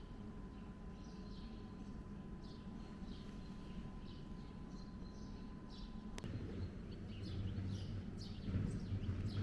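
Small birds chirping in quick repeated short calls over a faint low rumble. A faint steady high tone stops with a click about six seconds in, after which a low hum grows louder.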